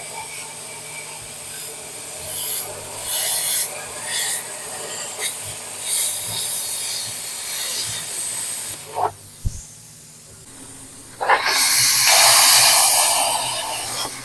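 A cutting tool working through rusted steel of a car's frame rail: a rasping hiss in short, uneven passes, with a longer, louder pass near the end.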